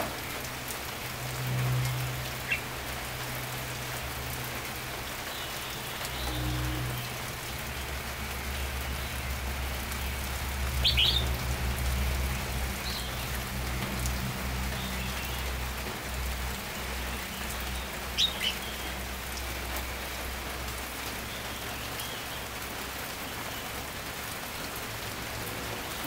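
Steady patter of rain, with a few short chirps from a caged red-whiskered bulbul: a brief note a couple of seconds in, a louder one near the middle, and two quick notes about two-thirds of the way through.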